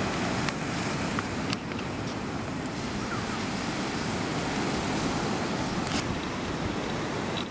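Steady rush of sea surf breaking on the shore, mixed with wind.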